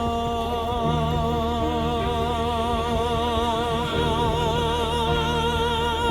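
Song: a voice holds one long note with a wide, even vibrato over sustained accompaniment and a steady bass line.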